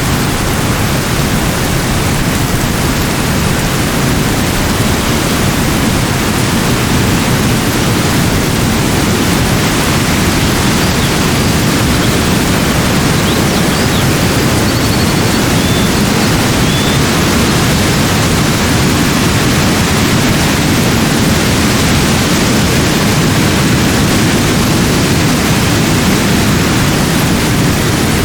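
Steady, loud rushing noise, strongest in the low range and even throughout, with a few faint short high chirps around the middle.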